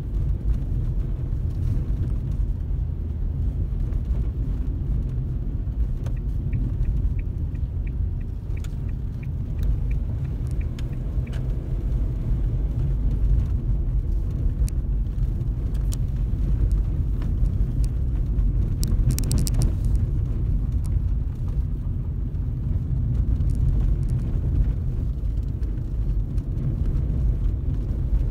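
Car driving along a road: steady low rumble of engine and road noise. A faint regular ticking, about twice a second, runs for a few seconds near the first third, and a brief hiss comes about two-thirds through.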